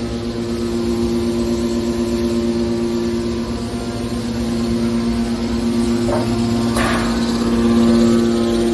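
Hydraulic power unit of a car body baler running with a steady, loud hum. Two short sharp noises come through about two-thirds of the way in.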